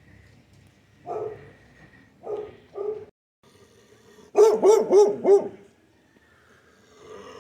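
A dog barking: a few single barks, then a louder run of four quick barks about halfway through.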